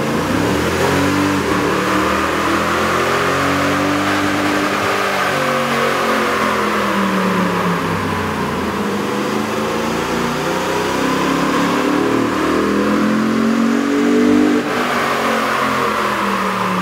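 Toyota Tundra 4.6L V8 running under load on a chassis dynamometer, its engine speed rising and falling in slow sweeps. The first part is the truck with its stock intake; about fifteen seconds in the sound cuts abruptly to the same engine fitted with a K&N cold air intake.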